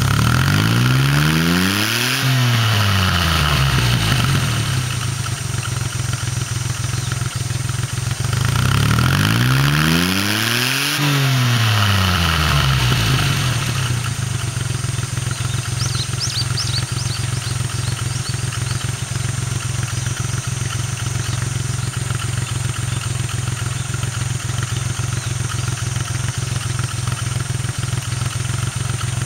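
Daihatsu Midget II kei truck's 660 cc engine blipped twice through a one-off custom muffler with its inner silencer fitted. Each rev climbs in pitch for about two seconds and falls straight back. About halfway through it settles into a steady idle.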